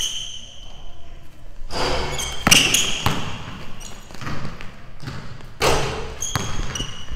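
Basketball being dribbled on a hardwood gym floor, a series of bounces, with sneakers squeaking on the floor in short high chirps several times.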